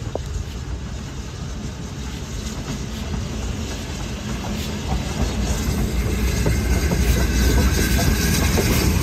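BR Standard Class 9F 2-10-0 steam locomotive hauling passenger coaches, running past and growing steadily louder as it draws near, with the clatter of its wheels on the rails.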